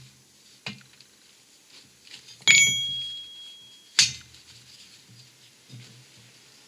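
Metal clanks as a hub carrier is set on a hydraulic shop press: a light tap, then a louder clank about two and a half seconds in that rings briefly, and a sharp click about a second and a half later.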